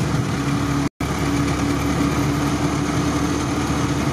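Stock UAZ's engine and road noise droning steadily inside the cab while driving on a highway. The sound cuts out completely for a moment about a second in.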